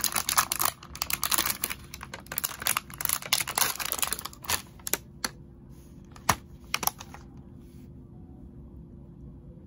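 Thin clear plastic takeaway clamshell box being opened and handled by hand: rapid crackling and clicking of the plastic for about four seconds, then a few separate sharp clicks.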